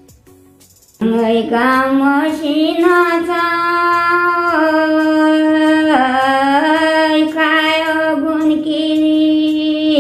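An elderly woman singing a Nepali folk song unaccompanied, of the kind sung on the way to the forest. The singing starts about a second in, in long held notes that glide slowly between pitches, with short breaks for breath.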